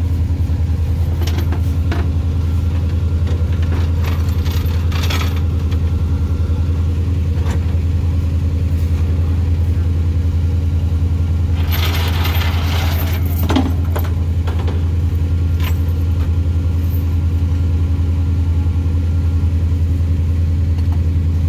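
Tow truck's engine idling steadily with a deep, even hum. Brief rattling noises come about four to five seconds in and again about twelve seconds in.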